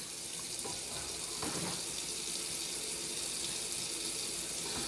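Kitchen sink tap running steadily into the sink, stopping near the end.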